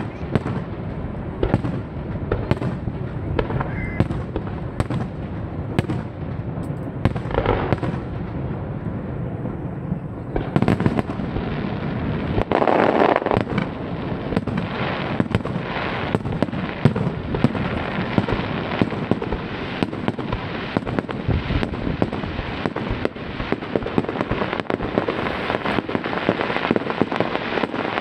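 Aerial firework shells bursting one after another. From about ten seconds in, a dense crackling of many small bursts runs on under the strikes.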